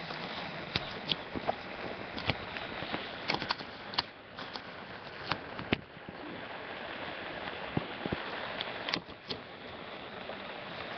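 Steady hiss of heavy rain, with irregular sharp ticks scattered through it.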